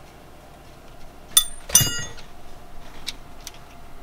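Metal hand tool clinking twice against metal about a second and a half in, each strike ringing briefly, followed by a few light ticks.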